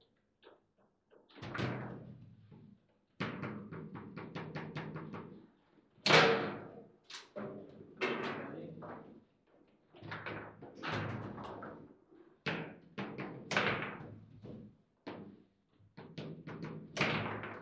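Table football (foosball) in play: the ball and the player rods knocking and clattering against the table, with quick runs of tapping as the ball is passed between figures and sharp shots off the wall, the loudest about six seconds in.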